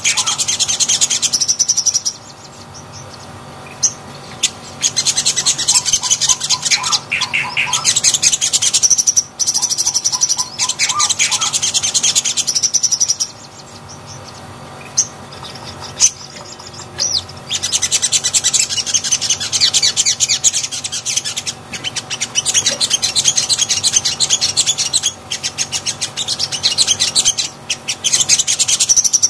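Caged sogon (sogok ontong) singing a rapid, high chattering song. It sings in long stretches and falls quiet for a few seconds twice, about two seconds in and near the middle.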